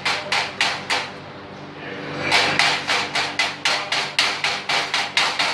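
Chipping hammer striking a stick-weld bead in quick metallic taps, about four a second, knocking off the flux slag; the tapping pauses for about a second near the start, then resumes.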